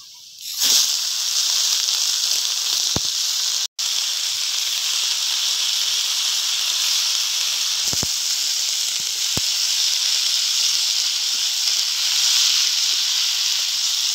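Chopped ridge gourd and potato dropped into hot oil in a kadai: a loud, steady sizzle that starts suddenly under a second in, with a few light knocks of the steel spatula stirring and a brief break just before four seconds.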